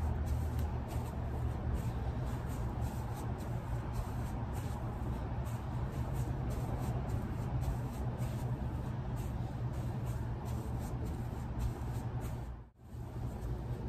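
Faint scuffs and taps of bare feet and hands on concrete during a bodyweight workout of burpees and mountain climbers, over a steady low hum. The sound cuts out briefly near the end.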